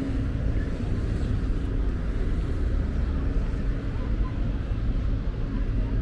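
Street traffic ambience: a steady low rumble of passing cars.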